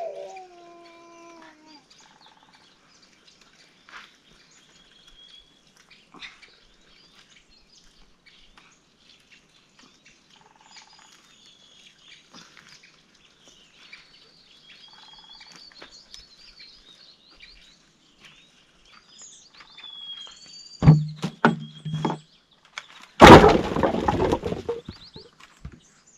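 Small birds chirping faintly. Near the end, a few sharp knocks, then a loud rough crash lasting about a second and a half.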